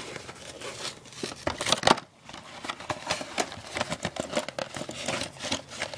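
Product packaging crinkling and rustling as it is worked open by hand, a dense run of irregular crackles with a louder one just before two seconds in.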